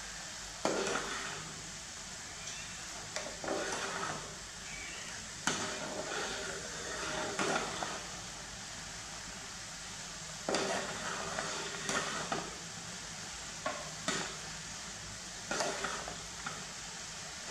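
Metal ladle stirring rice porridge in a non-stick saucepan, scraping and knocking against the pan every second or two, over the steady bubbling of the porridge at the boil.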